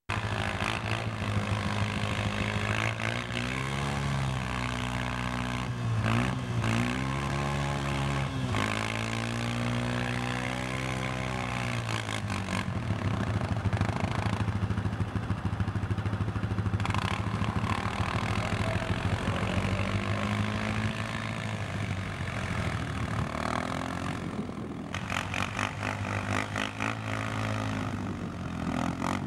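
An engine running, its pitch rising and falling several times as it is revved up and eased off, over a steady hiss.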